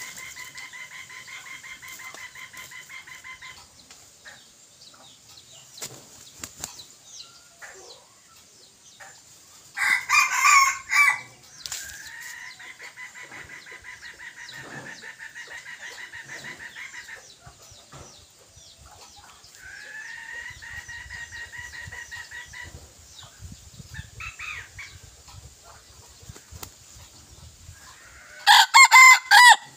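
Red junglefowl decoy roosters crowing: two loud, close crows of about a second each, one about ten seconds in and one near the end. Between them come fainter, long, level drawn-out calls lasting several seconds, and a few short rustles or wing-flaps.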